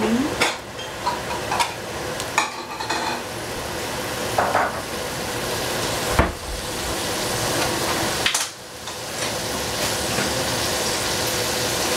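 Cabbage and tofu sizzling in a hot pan while a spatula stirs them, with sharp knocks and scrapes of the spatula against the pan now and then. The sizzle drops briefly a little after eight seconds in.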